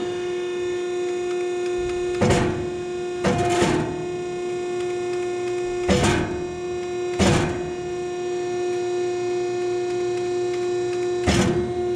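About six heavy knocks on steel, a second or more apart: hammer blows working a bend into the blade's brace bars. They sound over a steady hum.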